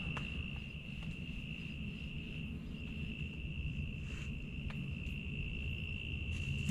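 An insect trilling one steady high note without a break, over a low rumble.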